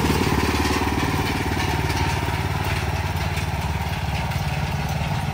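Small engine of a homemade crop-sprayer cart running steadily under way, growing slightly fainter as the cart moves away.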